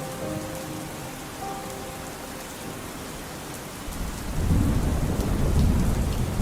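Steady rain falling, then a deep rumble of thunder rolls in about four seconds in and becomes the loudest sound.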